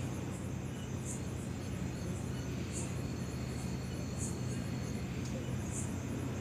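Steady low electrical hum with background hiss from the recording setup, heard during a pause in the narration. Faint short high-pitched chirps recur about every second and a half.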